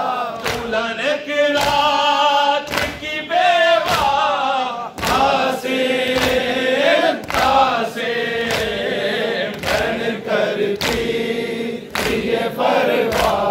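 A nauha, the Shia Muharram lament, sung by a male reciter through a microphone with a crowd of mourners singing along. Under it runs a steady rhythm of matam: open hands beating on chests.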